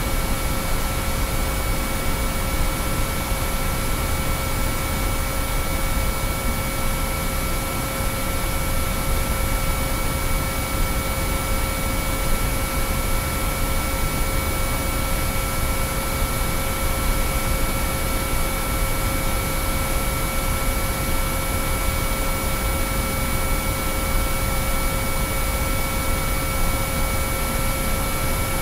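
Binaural-beat track: several steady sine-wave tones, low and high, held unchanging over a constant bed of hiss-like noise.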